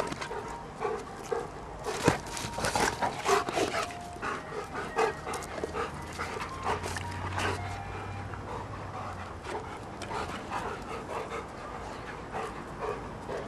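Two Labrador retrievers tussling: a string of short, irregular dog sounds and scuffles, busiest in the first few seconds and thinning out later.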